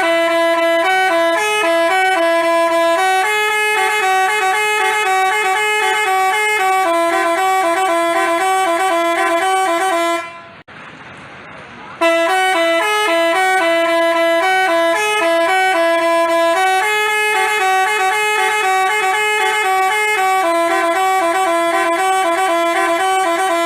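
Telolet basuri multi-tone horn playing a stepped melody on a few pitched notes. The tune stops about ten seconds in and starts over after a short break.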